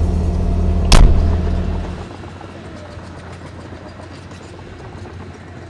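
Crawler excavator's diesel engine idling with a steady low hum, and one sharp knock about a second in. After about two seconds the engine hum drops away, leaving a fainter steady background of distant site machinery.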